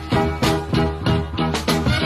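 Background pop music with a steady beat and rhythmic chords, no singing.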